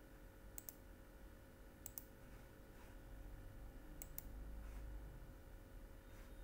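Three computer mouse clicks, each a quick double tick of the button pressed and released, over a faint steady hum.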